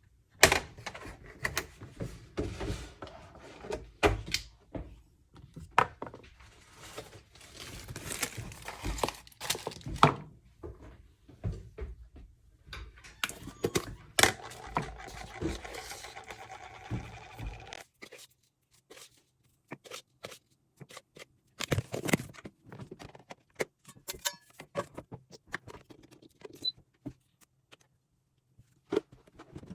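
A run of knocks, clunks and light scrapes from objects being handled and set down, with a steadier stretch in the middle that stops abruptly about 18 seconds in.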